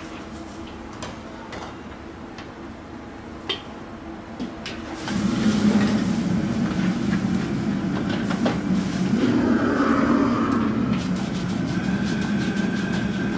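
A steady kitchen hum with a few light metal clinks of a ladle on a wok. About five seconds in, a loud steady rush starts as a wok station's gas burner runs under a hot, steaming wok. Water hisses in the wok as it is scrubbed with a bamboo wok brush.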